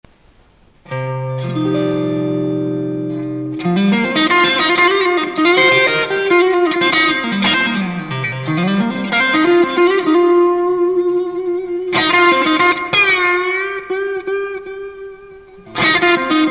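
A Mexican-made 2016 Fender Stratocaster Deluxe Roadhouse electric guitar played through an amp. It opens on a chord held for a few seconds, then runs into fast lead lines, with a swoop down in pitch and back up about eight seconds in. The playing fades off and a fresh chord is struck just before the end.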